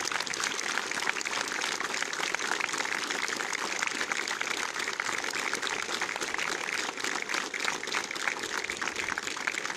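Sustained applause from ranks of cadets, many hands clapping at once in a dense, steady patter.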